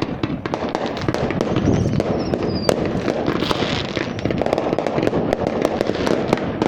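Fireworks going off: a dense, continuous crackle of many rapid pops and bangs, with a short, slightly falling whistle about two seconds in.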